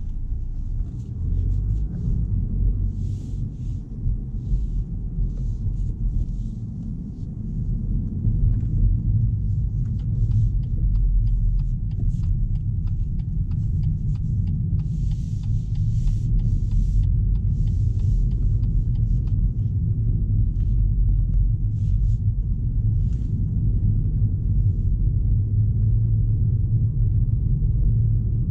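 In-cabin sound of a BMW 218i Active Tourer driving slowly in town: a steady low rumble from its 1.5-litre three-cylinder petrol engine and the tyres on the road. The rumble grows a little louder about eight seconds in.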